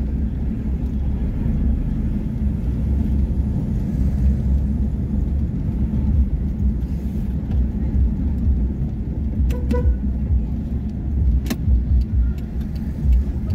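Car driving slowly through streets, heard from inside the cabin: a steady low engine and road rumble, with a few short clicks and rattles about two-thirds of the way through.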